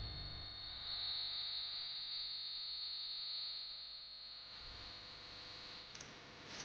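A faint, steady high-pitched tone that fades out about five seconds in, followed by a few faint clicks near the end.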